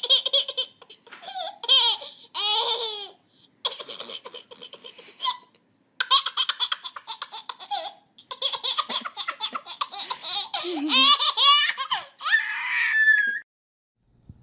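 A baby laughing hard in repeated bouts of belly laughter, with short breaths and pauses between the bouts. The laughter stops shortly before the end.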